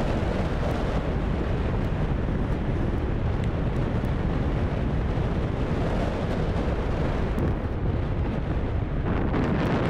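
Heavy wind buffeting on the microphone of a moving Piaggio Liberty scooter, a steady low rumble with the scooter's road and engine noise mixed in.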